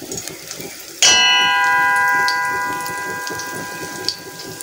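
Batter frying softly in oil in an iron pan, with a light crackle. About a second in, a metal object is struck and rings out with a bell-like tone of several pitches that fades slowly over a few seconds.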